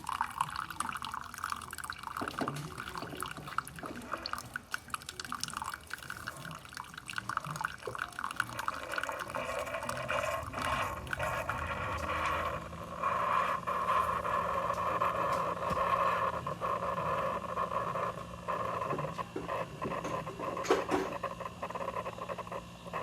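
Coffee maker dispensing coffee into a cup: a steady stream of liquid pattering and dripping. It grows louder about halfway through, when a low steady hum joins it.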